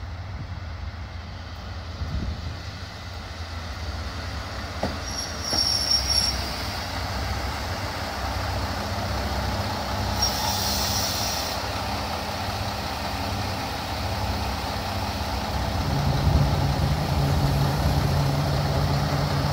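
Diesel railcar idling at the platform, a steady low rumble. There are two short high-pitched squeals, one about 5 seconds in and one about 10 seconds in. From about 16 seconds a deeper engine hum swells and holds louder.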